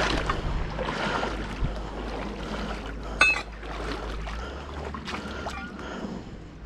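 Wading through a fast-flowing river: water swishing and splashing around the legs, with wind rumbling on the microphone. A short sharp knock about three seconds in.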